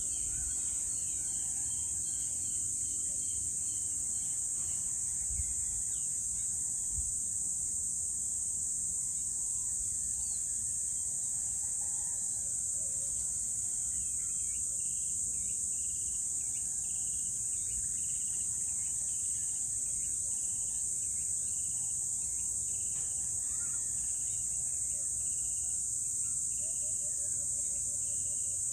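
Steady high-pitched insect chorus. From about halfway through, short calls repeat about once a second.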